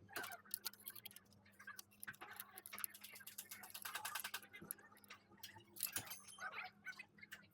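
Scattered light clicks and metallic clinks of tools or small parts being handled, over a faint steady hum.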